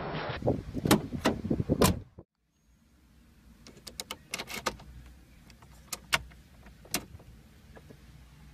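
A few sharp knocks and bangs over a rough rumble, then, after a cut, a car key being worked in the ignition: scattered clicks over a faint steady hum inside the car.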